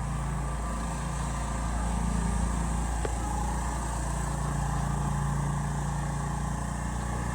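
Riding lawn mower engine running steadily under load while towing heavy logs, a little louder about two seconds in.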